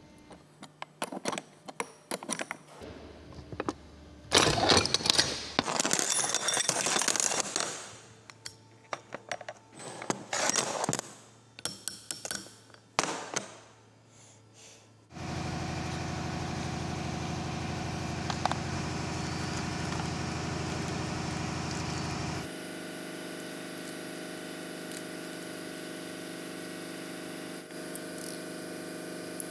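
Irregular metal clinks and clatter of a motor rotor shaft, bearing and hand tools being handled on a workbench. About halfway through this gives way to a steady mechanical hum.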